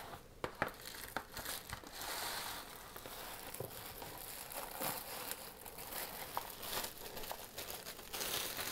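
Clear plastic pizza wrap crinkling and rustling as it is pulled off and handled, with short sharp crackles throughout.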